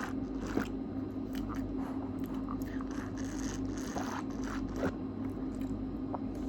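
Scattered soft clicks and scrapes of a small plastic drink bottle and its straw being handled while sipped, over a steady low hum.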